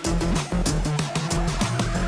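Background music: electronic track with a steady, driving drum beat and bass.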